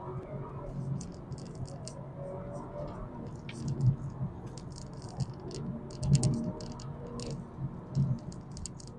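Car cabin noise: a low steady hum with scattered small clicks and rattles, and a few soft thumps about four, six and eight seconds in.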